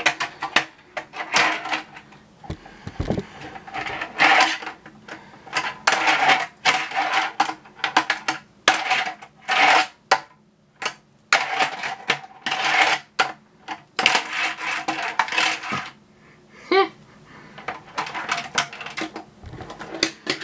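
Tech Deck fingerboard clattering on a plastic ramp set. Its wheels roll and scrape, and the board clacks against the plastic ramp and rail in repeated runs of sharp clicks with short pauses between.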